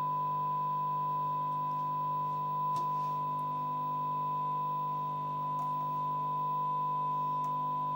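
Steady 1 kHz test tone from a 1959 Philco Predicta television's speaker, with a low hum underneath.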